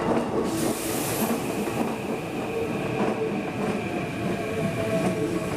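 Keikyu Line train running past, a steady rumble of wheels on rails, with a brief high hiss about a second in.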